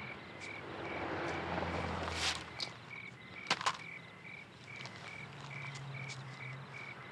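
Night-time ambience of crickets chirping steadily, about two short chirps a second. A couple of sharp knocks or steps come through around the middle.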